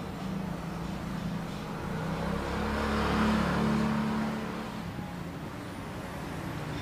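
Epson L300 inkjet printer printing a page: its print-head carriage and paper-feed motors run with a steady mechanical hum that swells loudest about three seconds in.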